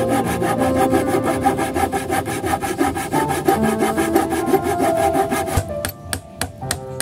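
Hacksaw sawing through a green wooden branch clamped in a bench vise, with quick, even back-and-forth strokes. About five and a half seconds in, the sawing gives way to sharper, spaced knocks of a metal blade being worked into the wood.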